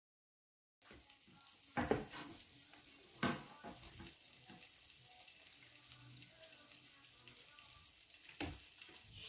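Garlic, butter and lemon sauce sizzling quietly in a frying pan as it is stirred, with three sharp knocks of the utensil against the pan. The sound cuts in abruptly about a second in.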